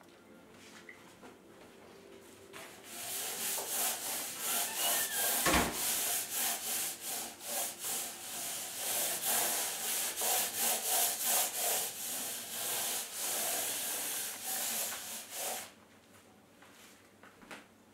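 Hand sanding block rubbed back and forth over a painted countertop, a rasping hiss in quick repeated strokes that starts about three seconds in and stops shortly before the end.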